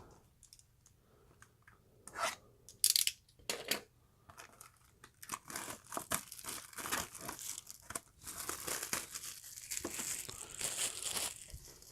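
Plastic wrapping being torn and crinkled off a sealed trading card box: a few separate rips and crackles, then dense crinkling from about five seconds in until near the end.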